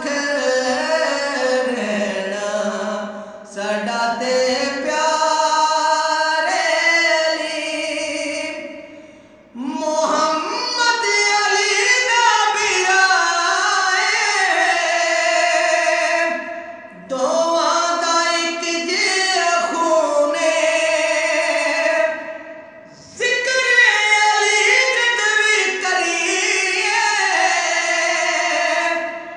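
A man singing a naat, an Urdu devotional hymn, in long drawn-out phrases that waver in pitch, with four short pauses between phrases.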